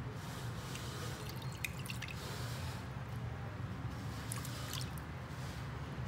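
Water dripping from a tilted metal bowl into a metal baking tray: a few scattered drips and taps, over a steady low hum.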